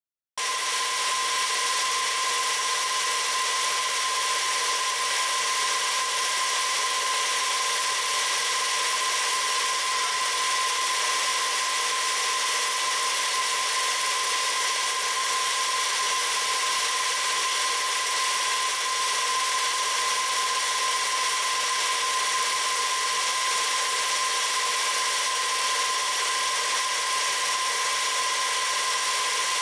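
Milling machine with a spiral end mill cutting into a small metal block held in a vise. A steady, even machining whine with a clear ringing tone over a high hiss.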